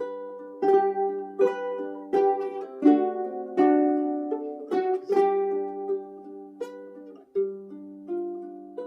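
Ukulele playing: a run of plucked and strummed chords, each struck sharply and then ringing out and fading before the next.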